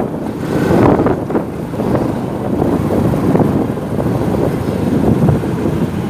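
A motorcycle riding through city street traffic, with wind buffeting the microphone in an uneven low rumble.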